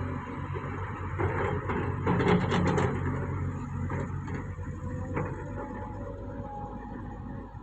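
Heavy crawler bulldozer's diesel engine running steadily, with clanks and knocks of metal, loudest about two to three seconds in.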